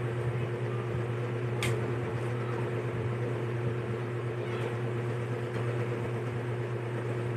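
Steady low hum of a running appliance such as an electric fan, with one sharp click about one and a half seconds in.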